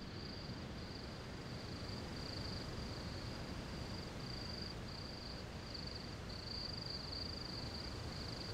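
Night insects trilling: a high, continuous buzz broken into uneven pulses, over a steady rushing hiss.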